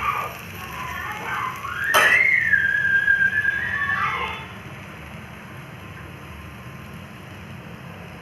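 A whistled note in a background music track: it slides up about two seconds in, holds for about two seconds and falls away. A steady low hum follows.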